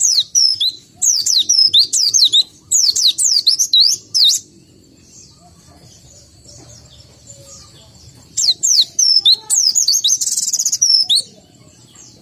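White-eye (pleci) singing in two bursts of rapid, high, sweeping chirps. The second burst ends in a short buzzy trill.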